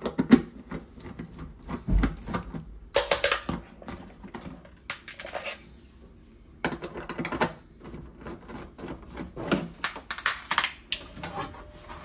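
Nut driver backing out the screws of a refrigerator's sheet-metal rear cover, then the metal panel being worked loose: clusters of sharp clicks, taps and metal rattles.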